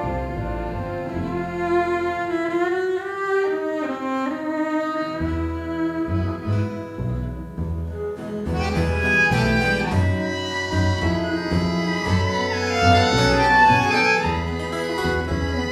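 Two violins playing a fast Gypsy-style melody over double bass, with sliding notes. The bass drops out briefly about four seconds in and returns, and the ensemble grows fuller about halfway through.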